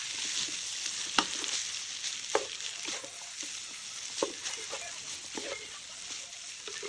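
Stir-fried spaghetti and vegetables sizzling in a pan as they are stirred, with a steady hiss and a utensil knocking against the pan about once a second.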